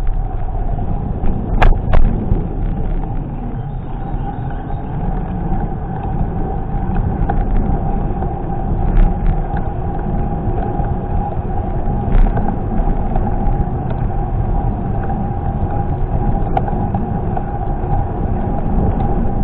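Wind buffeting and road rumble on a camera riding along on a moving bicycle, with a steady whine throughout and a few sharp clicks and knocks, the loudest two close together about two seconds in.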